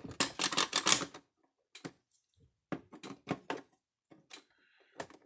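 The stiff slide switch on a Stafix X18i fence charger's plastic case being worked back and forth, freshly sprayed with contact cleaner: a quick run of clicks and scrapes for about the first second, then scattered single clicks.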